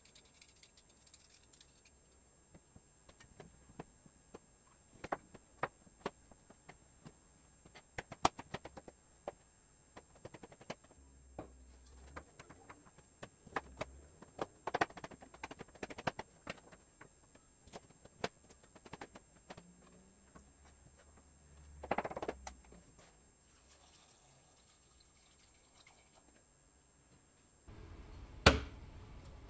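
Kitchen knife cutting peeled potato into cubes on a plastic cutting board: irregular sharp taps and clicks, with potato pieces dropping into a steel pot. Near the end comes a single loud knock.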